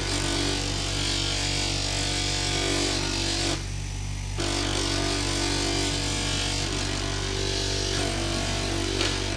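Bench grinder motor running steadily while a small stone is pressed against its spinning 1200-grit sanding disc, giving a gritty sanding hiss. About four seconds in the stone is lifted off for a moment: the hiss stops and the motor hum carries on, then sanding resumes.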